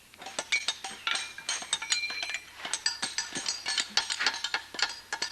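Hard bricks clinking and knocking against one another as they are broken up and handled: rapid, irregular strikes, several a second, some ringing briefly.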